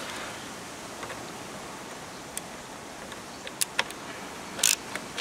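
Screwdriver turning a retaining screw out of an air rifle's plastic stock: a few small, sharp clicks, the loudest a short cluster near the end, over a steady hiss.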